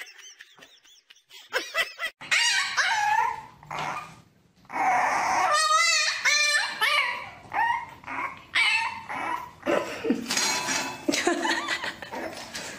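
A puppy yipping and whining in a run of short, high-pitched cries, with one long wavering cry about six seconds in.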